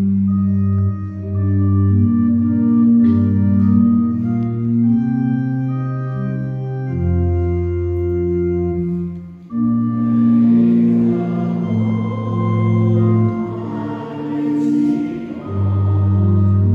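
Church pipe organ playing a hymn in steady held chords; about ten seconds in, many voices join in singing the hymn with the organ.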